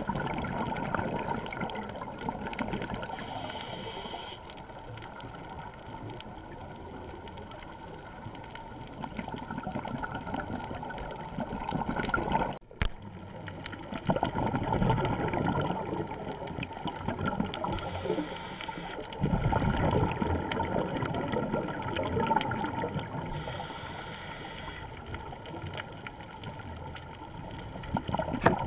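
A scuba diver breathing through a regulator, heard underwater through a GoPro housing: several bubbling exhalations lasting a second or two each, with fainter hissing inhalations between them.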